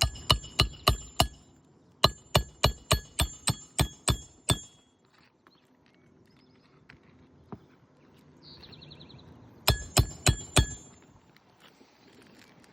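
Hammer driving roofing nails into an asphalt shingle: three quick runs of ringing metal-on-metal blows, about three or four a second, with a short pause after the first run and a longer one before the last.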